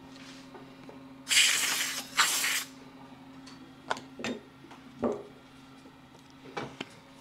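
Two short blasts of compressed air from an air-hose blow gun in quick succession, blowing loose sanding grit off the turned birch between sanding grits. A few knocks follow as things are handled.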